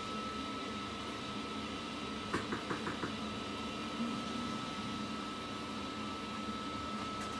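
Steady hum of kitchen equipment with a thin high whine. About a third of the way in comes a quick run of about six light knocks, and a single knock follows a second later.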